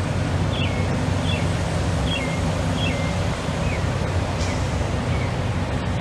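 A steady low outdoor rumble, with a bird repeating a short downward-sliding chirp about every 0.7 seconds; the chirps fade out after a few seconds.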